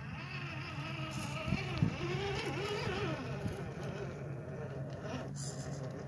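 Axial SCX10 II Deadbolt RC crawler's electric motor and geared drivetrain whining as it climbs over loose rocks, the pitch rising and falling with the throttle over a steady low hum.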